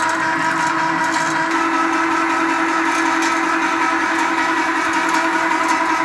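Electric balcony hoist winch running steadily with an even whine, winding its rope to haul a loaded cage up.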